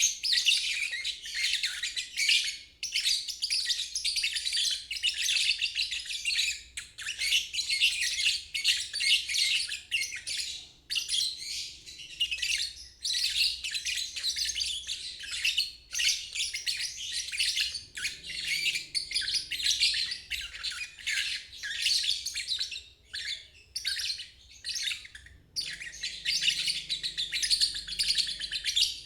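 Lovebird ngeriwik: rapid, high-pitched twittering chatter that runs on almost without a break, with short pauses every few seconds.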